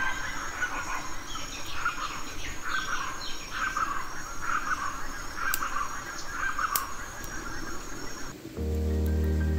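Outdoor forest background of birds calling and a high, steady insect buzz, with a few faint ticks. About eight and a half seconds in it cuts to music with a steady low note.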